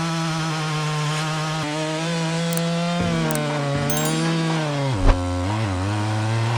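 Large chainsaw with a long bar running at high revs in wood. Its pitch drops about three seconds in and sags sharply near five seconds as the chain loads up, with a single thump there, then it runs on at lower revs.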